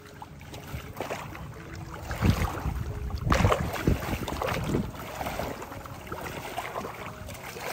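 Muddy floodwater sloshing and splashing around legs wading knee-deep through it, in uneven surges with each stride.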